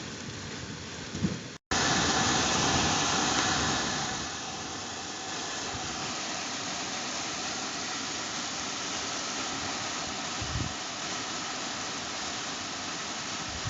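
Heavy rain downpour making a dense, steady hiss, with low rumbles of thunder in the first second or so. The sound cuts out briefly and comes back louder, then eases a little about four seconds in.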